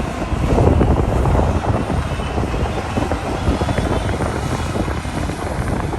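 Bulldozer's diesel engine running hard under load: a dense, steady low rumble with many short irregular knocks and rattles through it.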